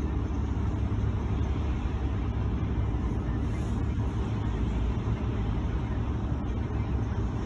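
Steady low rumble of road traffic on a flooded, rain-soaked road, with a car's tyres running through standing water and throwing up spray.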